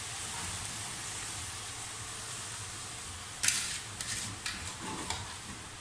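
Wet chopped spinach steaming and sizzling in a hot aluminium pot on a gas stove: a steady hiss, then a run of sharper crackles and pops starting about three and a half seconds in.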